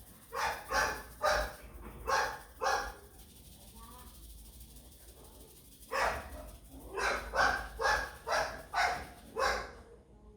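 A dog barking in two runs: about five barks, a pause of about three seconds, then about seven more in quick succession.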